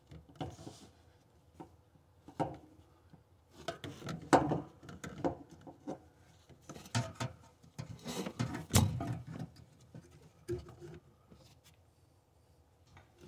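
Irregular knocks, clicks and rubbing of tub drain and overflow fittings being handled and worked into place, loudest about four seconds in and again near nine seconds, then dying away.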